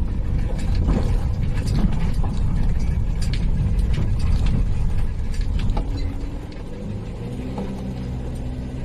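Motorhome heard from inside the cab on a rough, broken road: a heavy rumble with scattered rattles and knocks from the body and loose contents over the bumps. About six and a half seconds in it smooths out to a quieter, steady engine and road drone.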